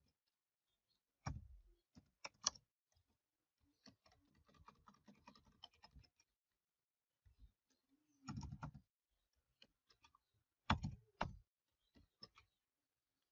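Computer keyboard typing, faint: scattered key presses, a quick run of light keystrokes in the middle, and a few louder clacks.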